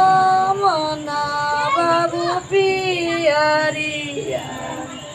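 Women singing a traditional devotional folk song to Ganga Maiya, with no accompaniment. The notes are long and drawn out and slide from one pitch to the next, and the singing fades near the end.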